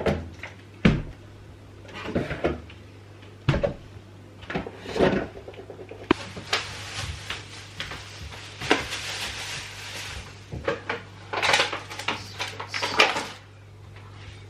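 Fridge being emptied: a string of knocks and clatters as containers, jars and shelves or drawers are handled and set down, with a few seconds of rustling in the middle.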